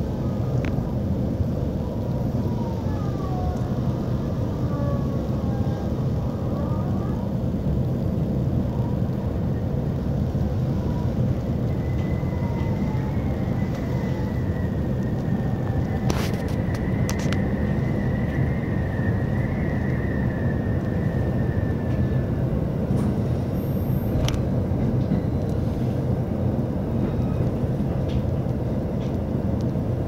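Local electric train heard from inside the passenger car, running at reduced speed under a strong-wind restriction: a steady rumble throughout. Short whining glides come in the first few seconds, a thin high squeal holds through the middle, and a few sharp clicks come about halfway.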